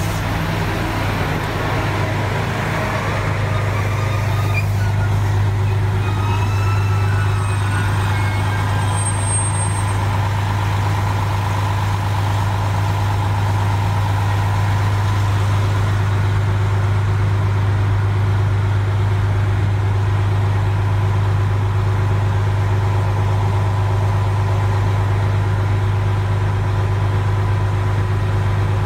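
KiHa 200 diesel railcar standing at a platform with its diesel engine idling, a steady low hum with a faint whine over it. A few faint squealing glides come in the first several seconds as it settles at a stop.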